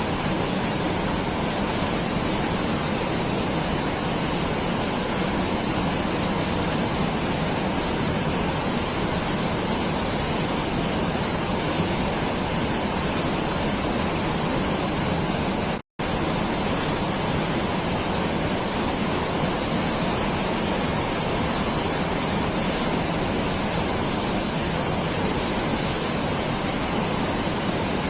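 Steady, even rushing of water, with one momentary drop to silence about halfway through.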